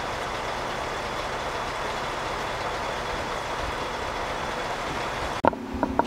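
Machinery running steadily with a faint hum, then a sudden change about five seconds in to a few sharp knocks.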